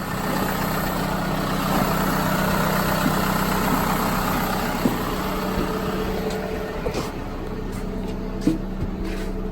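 A vehicle engine idling steadily, with a few light knocks in the second half.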